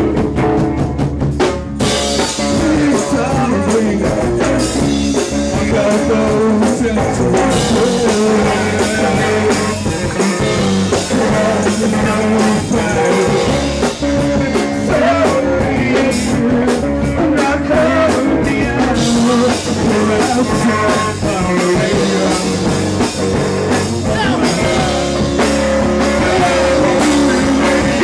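Rock music with drums and guitar, and a voice singing over it.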